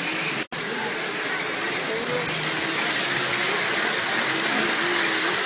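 Model trains running past close to the microphone, a steady rolling rumble and hiss, over the murmur of a crowd. The sound cuts out for an instant about half a second in.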